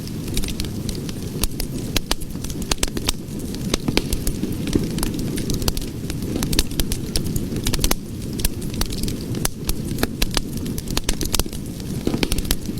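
Cooking fire burning: a steady low rush of flames with frequent sharp, irregular crackles and pops.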